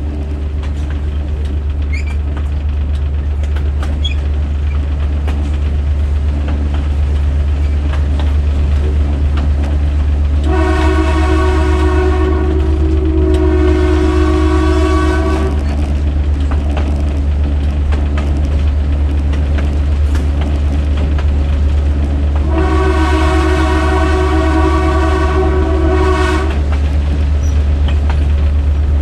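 GMD-1 diesel locomotive's air horn sounding a multi-note chord: two long blasts back to back about ten seconds in, then one more long blast of about four seconds. A steady low rumble of the moving train runs underneath.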